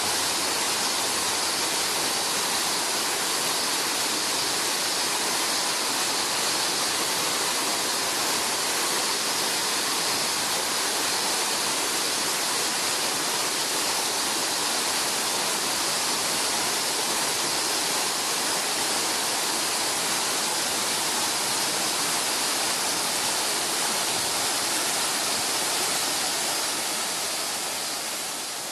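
Fudō Falls waterfall pouring steadily, a dense even rush of falling water, fading out near the end.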